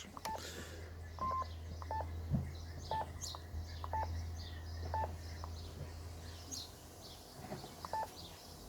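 Short electronic key beeps from a Yaesu FT-857 transceiver as its buttons are pressed, about one a second with a pause of a couple of seconds in the middle. Faint bird chirps and a low hum sit underneath.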